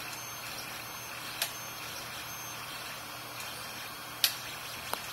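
Tevo Tornado 3D printer running mid-print, a steady mechanical hum and hiss from its fans and stepper motors, with a few sharp clicks, the loudest about four seconds in.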